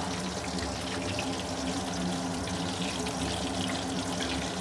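Chicken pakoda pieces sizzling steadily as they deep-fry in hot oil in a kadai, with a fine crackle, over a steady low hum.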